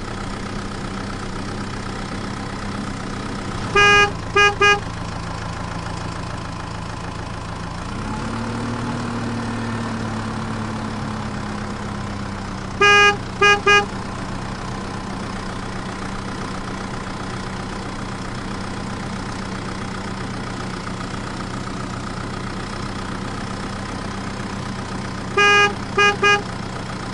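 Sound effect of a truck engine idling steadily, rising slightly in pitch about eight seconds in as if revved, then settling. A truck horn sounds three times, each time one long toot followed by two quick short ones.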